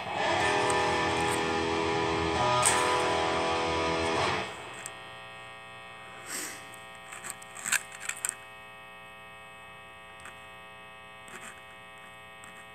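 Electric guitar with a P90 single-coil pickup, played through an amp: a strummed chord rings loud for about four seconds and is then cut off. After that only the steady hum and buzz of the amplified pickup is left, with a few small clicks from handling the strings.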